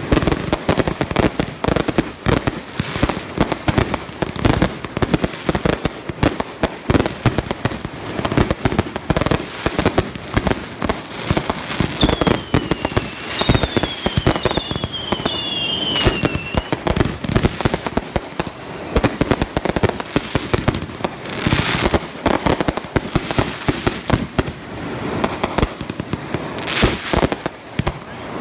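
Aerial fireworks barrage: a dense, rapid stream of bangs and crackle from shells bursting overhead. Several falling whistles come about halfway through, and there are patches of thicker crackling near the end.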